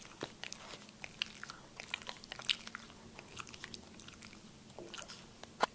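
Boston terrier's mouth making quick, irregular wet clicks and smacks of lips and tongue, with one sharper click near the end.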